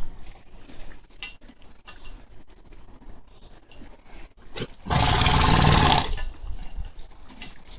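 A horse feeding, with scattered small crunching clicks. About five seconds in, a loud, noisy, fluttering blow lasting about a second, typical of a horse's snort.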